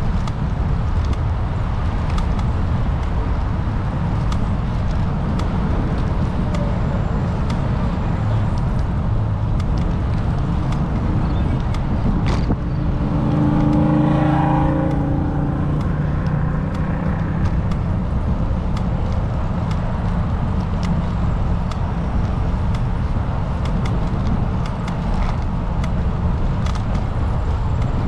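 Steady low road and wind rumble from travelling in traffic. About halfway through, a louder vehicle engine passes and then fades.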